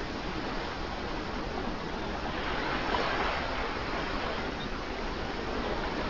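Sea waves rolling in as a steady wash of surf, with one wave swelling louder and breaking about halfway through.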